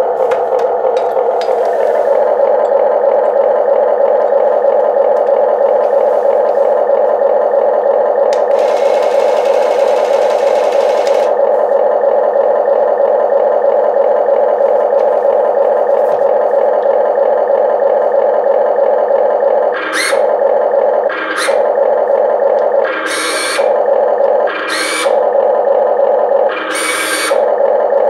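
The 1:14 Amewi 22501 RC excavator's built-in sound module, playing a simulated diesel engine running steadily through its small speaker after start-up. A high hiss lasts a couple of seconds about nine seconds in, and five short loud hissing bursts come near the end while the arm is worked.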